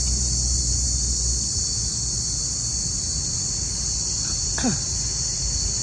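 Steady, unbroken high-pitched insect chorus, with a low rumble underneath. About four and a half seconds in, one short sound slides sharply downward in pitch.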